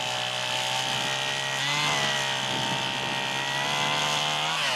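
Stihl chainsaw running at high revs, its pitch dipping briefly about two seconds in, then falling away near the end as the throttle is let off.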